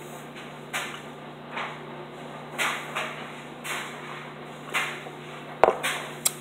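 Someone gulping a drink from a plastic cup, about one swallow a second, then a sharp knock near the end as the cup is set down on the table.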